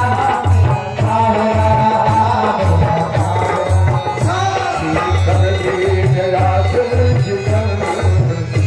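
Instrumental interlude of a Hindi devotional bhajan: a steady tabla-style drum beat under a sustained melodic instrument line.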